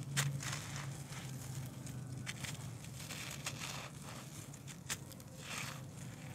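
Hands crushing and crumbling dry lumps of earth, with gritty, crunchy crackling and falling crumbs. A sharp crack sounds just after the start and again about five seconds in as a lump snaps.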